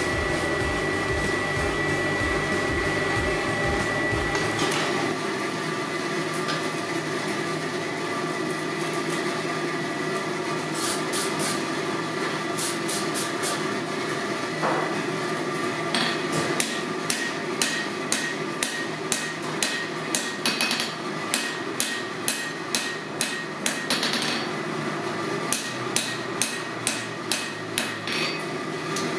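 Hammer blows on hot steel at the anvil, a few at first and then a steady run of about two strikes a second. A constant rush of the forge runs underneath.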